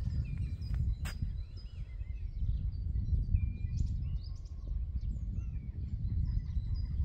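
Several small birds chirping and singing over a low, steady rumble. There is a single sharp click about a second in.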